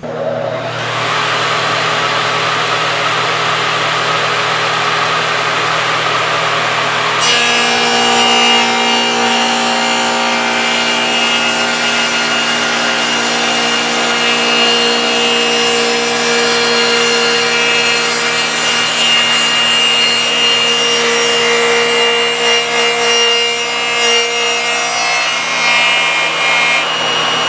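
Radial arm saw cutting a tenon across the end of a wide cherry board, running continuously. About seven seconds in the sound changes and a steady whine of several tones rises over the cutting noise.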